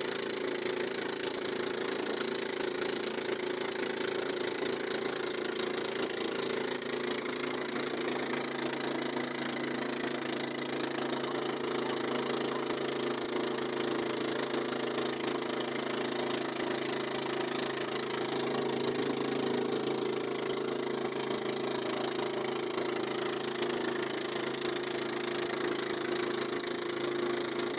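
Small outrigger fishing boat's engine running at a steady speed, an even drone that does not change.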